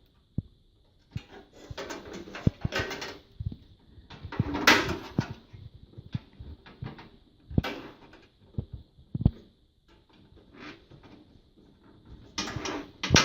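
Handling noise of a motherboard being lowered into a PC case and lined up over its mounting posts: scattered knocks, clicks and short rustles, with a few sharper knocks, as the board and case parts touch.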